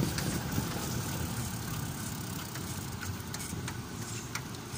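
A small vehicle on the move, heard from on board: a steady engine and road rumble, with the frame rattling in scattered sharp clicks.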